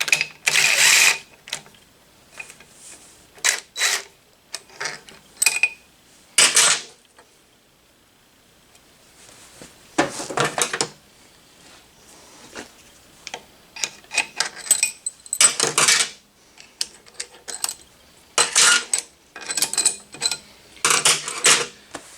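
Cordless impact wrench spinning out cylinder head bolts in several short runs, with small metallic clinks of the bolts and socket in between.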